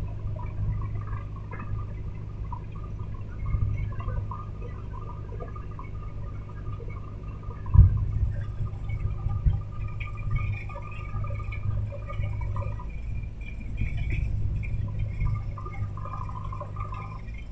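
Recovery vehicle's engine running steadily with a low hum while it works the boom winch lifting a truck up a slope, with one sharp knock just before eight seconds in.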